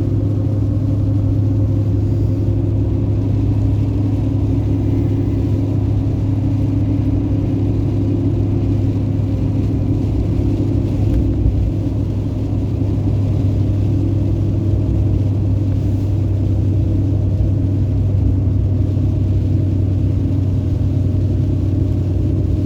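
Two-wheel-drive pickup truck's engine and tyres on a snow-covered road, heard from inside the cab as a steady low drone.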